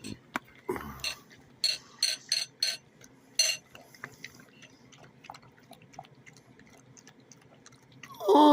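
Puppy lapping milk from a bowl: wet tongue clicks and splashes at about three a second, loudest in the first few seconds and then fainter. A person's voice says 'Oh' near the end.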